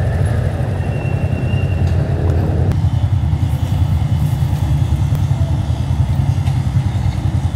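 Honda motor scooter engine idling steadily, with an even low rumble.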